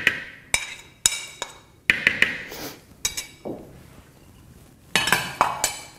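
Metal fork clinking and scraping against a plate as berries are pushed off it into a plastic mixing bowl, in several short clusters of sharp clinks with a quieter gap shortly before the last cluster.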